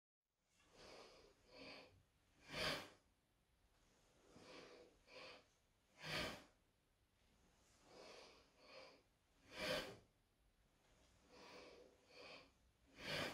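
Quiet, rhythmic breathing during overhead wooden-sword cuts: two softer breaths followed by one short, sharp exhale with each downward cut, repeating about every three and a half seconds, four times.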